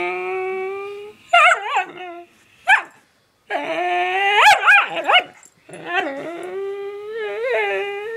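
Whippet making strange drawn-out, howl-like whining calls that waver in pitch, broken by short sharp yips. A long held note fades about a second in, short yelps follow, a brief silence comes about three seconds in, then two more long wavering calls with yips between them.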